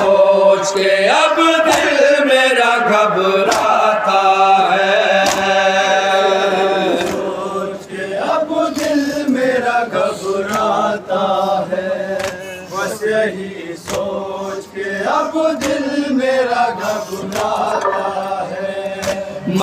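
Group of men chanting a noha, an Urdu Shia lament, in unison into microphones. Sharp slaps of hands beating on chests (matam) cut through the singing many times.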